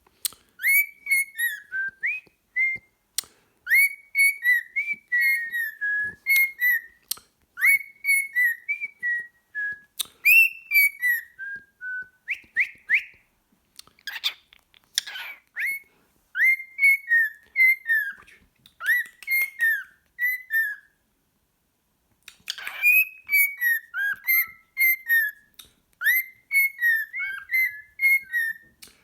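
Cockatiel whistling a song: a long run of short whistled notes that slide up and down, with a brief pause a little after twenty seconds and a few rougher, noisier sounds mixed in.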